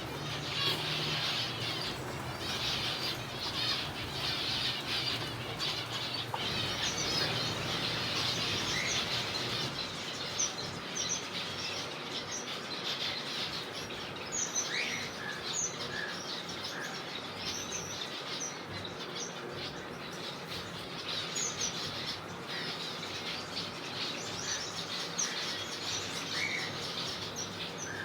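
A colony of zebra finches calling and chattering together, many short high calls overlapping in a continuous din, with wings fluttering.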